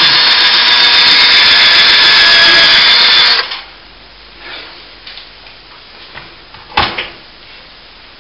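Screw gun running at a steady whine, pre-drilling a hole into an old plaster cornice so that it won't crack. It cuts off abruptly about three seconds in, and a single sharp knock follows near the end.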